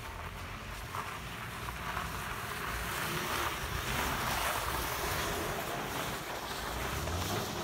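BMW E60 passing close by with its engine running and its tyres hissing through the snow; the rush swells to its loudest about four seconds in, then eases as the car drives away.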